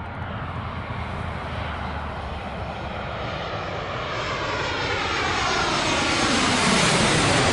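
Airplane engine noise growing steadily louder as the aircraft approaches.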